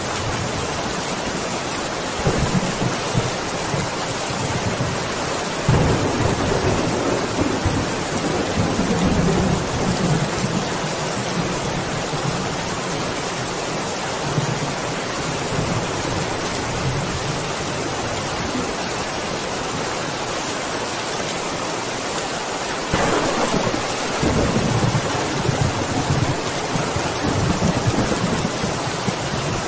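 Steady rain with rolling thunder. Long low rumbles swell up about six seconds in and again about three quarters of the way through, with a weaker one near the start.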